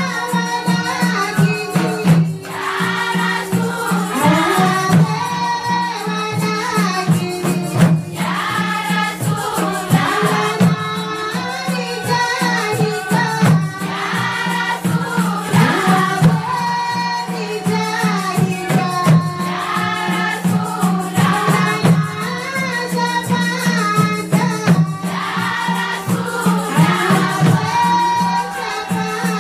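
A group of women singing a traditional song in chorus, with a steady rhythmic shaking or clapping percussion keeping time over a constant low drone.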